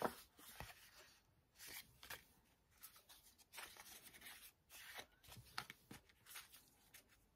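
Faint, irregular rustles and soft taps of handmade paper greeting cards being picked up, turned over and laid down on a wooden table.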